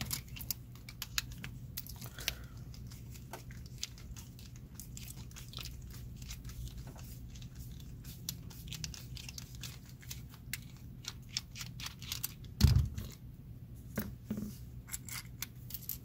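Precision screwdriver working at the bottom of a LockVoy padlock to take it apart and free the core: many light clicks, ticks and scrapes of metal on metal, with one dull thump about three-quarters of the way through.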